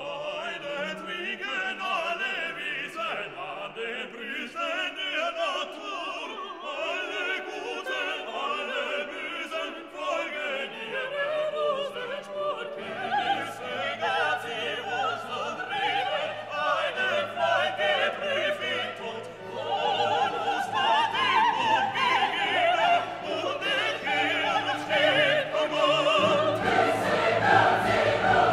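Background music: an operatic classical piece with a singing voice over orchestra, growing fuller in the low end about halfway through and again near the end.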